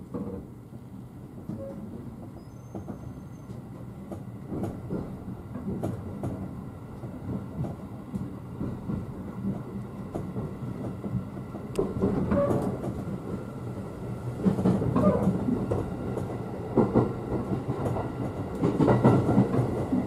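A JR 211 series 3000 electric multiple unit heard from inside the passenger cabin as it pulls away from a station and gathers speed. The running noise grows louder, with wheels clicking over rail joints.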